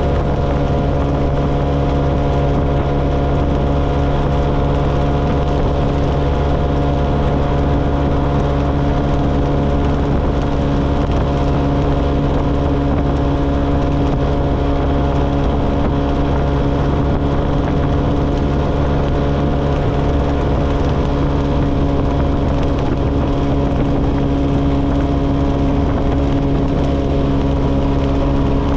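125cc motorcycle engine running at a steady cruising speed, its hum even and unchanging, over a steady rush of riding noise.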